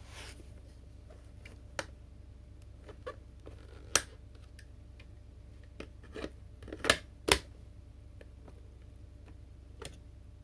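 Scattered sharp clicks and light knocks from hands working on the parts of a cordless stick vacuum cleaner, with two loud clicks close together about seven seconds in.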